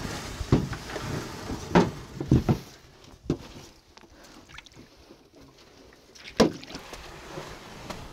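Hollow knocks and thumps on a small riveted metal dinghy as a person clambers over its bow and steps out onto the beach: about five separate knocks, the loudest about two seconds in and again near the end.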